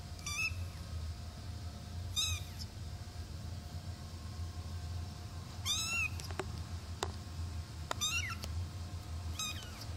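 A 23-day-old Singapura kitten mewing: five short, high-pitched mews spaced a second or more apart, over a low steady hum.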